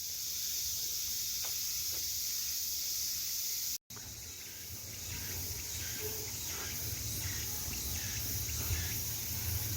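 A steady, high-pitched chorus of insects. A brief dropout comes about four seconds in, after which a low rumble joins it.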